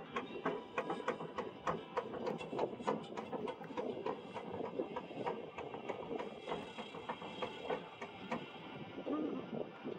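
Rapid, irregular knocking and clattering from a Nile fishing boat, several knocks a second: the fishermen beating the water and the boat to drive fish into their nets.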